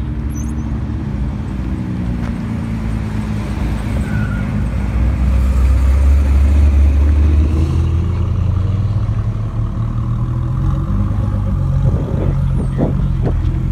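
A second-generation Ford GT's twin-turbo 3.5-litre V6 running at low speed as the car rolls past. The engine note grows louder about five seconds in and eases off after about eight seconds.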